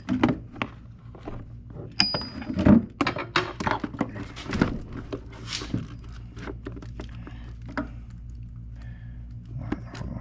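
Metal hand tools clinking and knocking as a ratchet is worked onto the serpentine belt tensioner of a GM 3800 V6. One sharp metallic clink rings briefly about two seconds in, and the knocks thin out to scattered ticks over a steady low hum in the second half.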